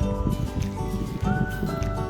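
Background music: held synth-like chords over a steady low beat.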